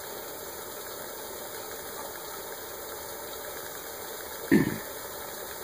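Pop-can alcohol stove burning steadily, its pressurized jets giving a constant rushing hiss under a pot of heating water. A short voice sound cuts in once, about four and a half seconds in.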